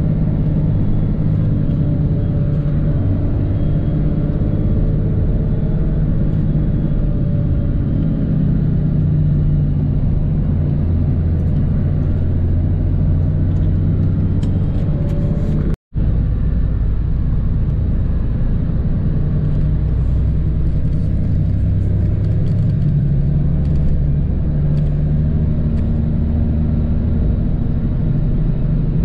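Coach engine and road noise heard from inside the passenger cabin: a steady low drone, cut off for a split second about halfway through.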